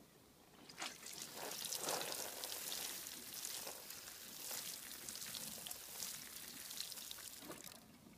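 Water sprinkling from a watering can's rose onto the potting mix and leaves of a potted maple, a pattering splash that starts about a second in and stops near the end.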